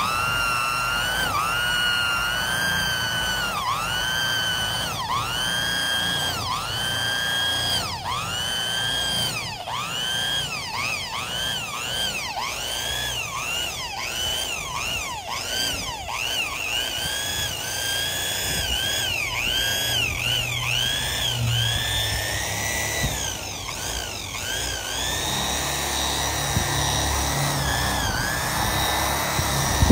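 Handheld electric rotary buffer with a pad spinning against a truck's painted hood, buffing dull, faded paint. Its motor whine dips briefly in pitch over and over, more rapidly in the middle stretch, then holds steadier. At the very end it winds down as it is switched off.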